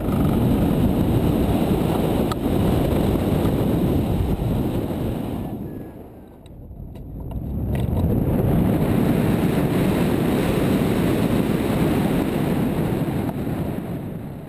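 Wind rushing over the hang glider's camera microphone during launch and the first moments of flight. It rises, dips about six seconds in, then builds and holds again.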